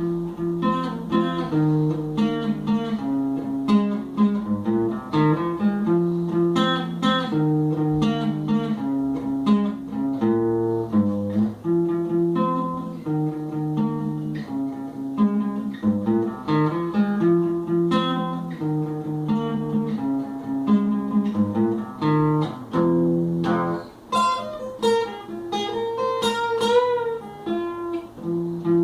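Guitar being played: picked and strummed notes moving through a repeating chord pattern. Near the end comes a higher melodic run with wavering, bent notes.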